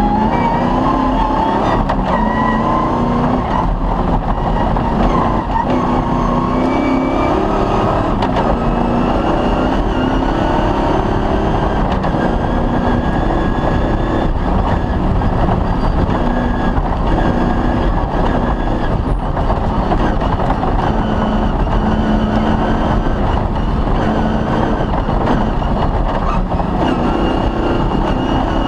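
Cross-country rally car's engine running hard under load, its pitch shifting up and down with throttle and gear changes, over a continuous loud din of mechanical and road noise.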